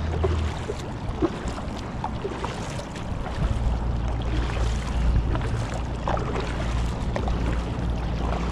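Kayak paddle strokes dipping and splashing in the water, with wind rumbling on the microphone.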